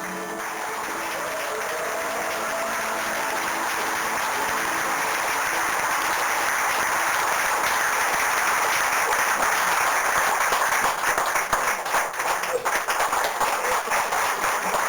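Audience applause after a folk song. It swells over the first several seconds while the last ringing guitar notes fade out. Near the end it thins into more distinct separate claps.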